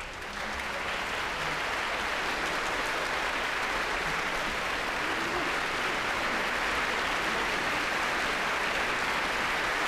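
Concert-hall audience applauding, the applause building over the first second and then holding steady.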